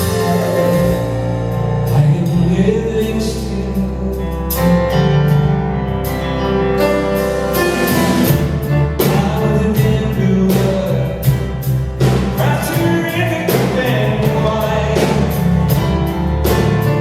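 Live band playing an instrumental passage of a song at a sound check, with sustained chords over a steady beat of sharp hits.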